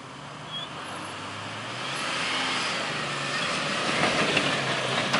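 Jeep Wrangler Rubicon's 4.0-litre inline-six running as the Jeep drives across soft sand, growing louder as it approaches. Sharp knocks and clicks join in from about four seconds in.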